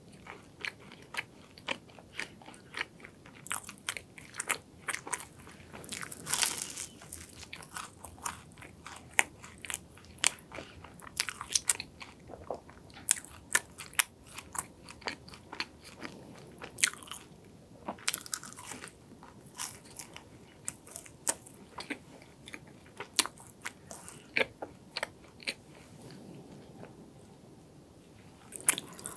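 Close-miked chewing of crisp croffle, the croissant dough pressed in a waffle iron: many short crunches and crackles, with wet mouth clicks from the cream.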